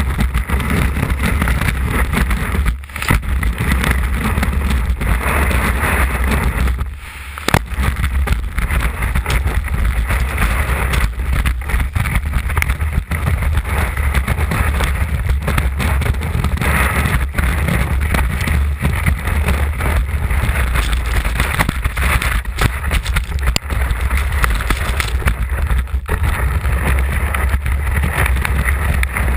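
Wind rushing over a ski-mounted camera's microphone, with skis hissing and scraping over packed snow on a fast descent. The noise drops away briefly twice, the second time ending in a sharp knock.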